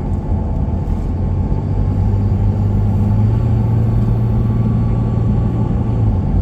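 Car engine and road noise heard from inside the cabin while driving at steady speed: a continuous low drone with an engine hum that swells slightly about two seconds in and eases near the end.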